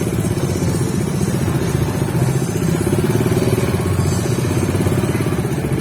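Motorcycle engine running steadily, a low, fast-pulsing throb.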